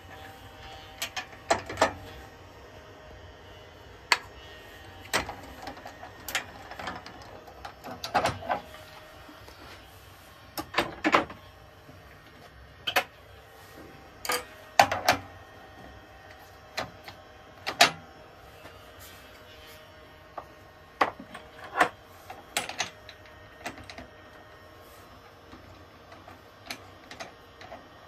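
Scattered clicks and knocks of a bowl blank and tools being handled and set in place at a wood lathe, irregular and a second or a few seconds apart, some with a brief ring.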